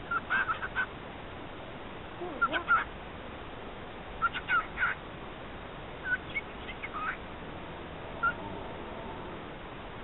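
Cockatiel mimicking human speech in a squeaky, chirping voice, in several short bursts a second or two apart; one phrase is "whatcha doin'?".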